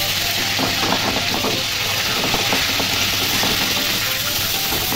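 Surmai (king mackerel) steaks sizzling steadily as they shallow-fry in hot oil in an aluminium kadai, with light scrapes and taps of a spatula turning them.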